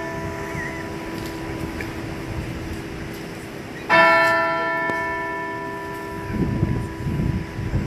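Cemetery bell tolling out the noon hour, struck slowly. The previous stroke is still ringing away at the start, a fresh stroke comes about four seconds in and hums on, fading slowly. Some low rustling noise is heard near the end.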